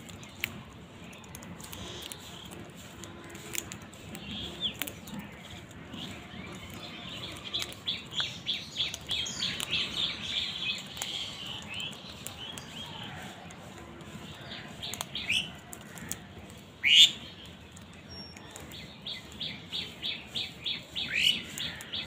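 Birds calling while feeding on grain: a mixed group of house crows and common mynas. There are quick runs of short chirps and a few sharp calls that drop in pitch, the loudest about 17 seconds in.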